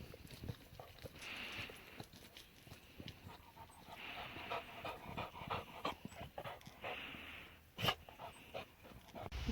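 A dog panting in spells, with scattered light clicks and one sharper click near the end.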